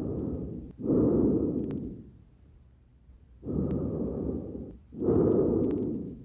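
Breath sounds heard through a stethoscope on the front of the chest: two full breaths, each a softer rushing part followed by a louder one, with a pause between the breaths.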